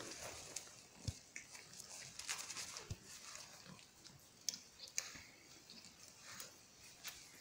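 Faint, scattered small sounds from a litter of young puppies moving and playing: short clicks, rustles and the odd brief soft vocal noise.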